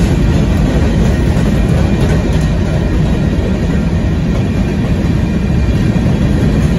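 Hopper cars of a Union Pacific gravel train rolling past: a loud, steady rumble of steel wheels on the rails, heaviest in the low end.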